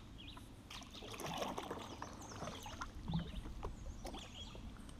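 Light water splashing and small knocks against the hull of a paddled boat, with birds chirping in the background.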